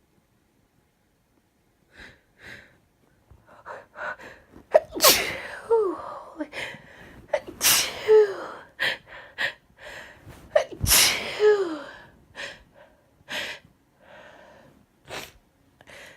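A woman sneezing three times hard while sick, each sneeze with a falling voiced tail, with quick gasping in-breaths and sniffles between and after them.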